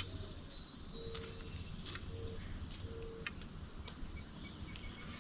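Quiet outdoor ambience with a faint insect trill, a sharp click at the very start and a few softer clicks after it. Three short low tones sound in the first half.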